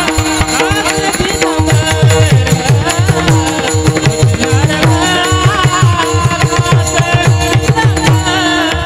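Marathi devotional kirtan music: a voice singing over steady held notes from a harmonium, with a fast run of drum strokes whose low pitch slides down after each hit.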